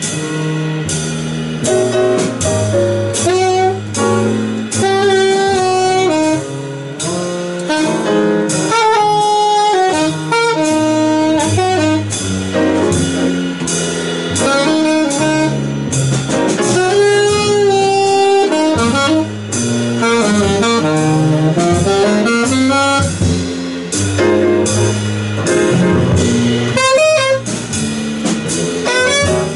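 Live small-band jazz: an alto and two tenor saxophones play the melody together in harmony over piano, double bass and drums.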